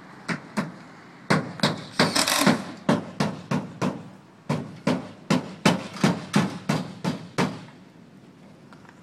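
Hammer strikes during roofing work, about twenty sharp blows in a steady rhythm, pausing briefly midway and stopping a little before the end.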